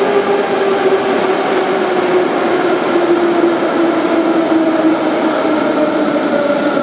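Type 81-717/714 metro train pulling into an underground station: a loud, steady rumble of wheels on rails with a whine that falls slowly in pitch as the train slows.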